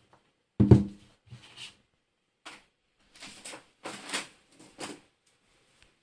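Handling noise from a JBL Flip 3 Bluetooth speaker being turned in the hand and set down on a table: a thud about half a second in, then a string of short rustles and knocks.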